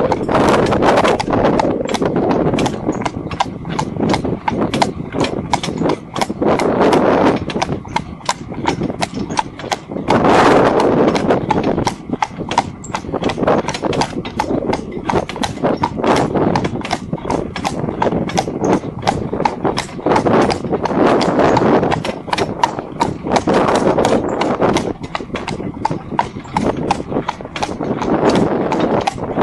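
A harness horse's hooves clip-clop on an asphalt road in a steady, quick rhythm as it pulls a two-wheeled cart, over a continuous rushing noise.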